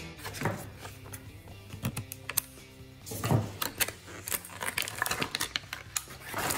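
Clear plastic toy packaging crinkling and crackling as it is handled, a run of short sharp crackles with the loudest about halfway through and again just before the end, over soft background music.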